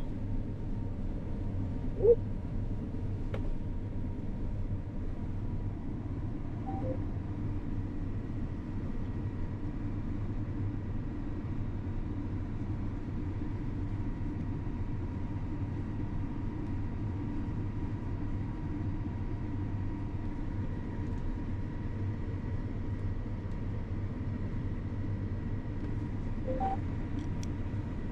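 Steady drone of a John Deere combine harvester's engine and threshing machinery heard from inside the cab, with a faint steady whine over the low rumble. A single sharp click about two seconds in.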